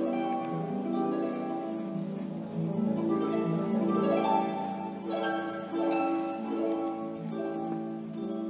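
Harp music: plucked chords and rising runs over ringing low notes.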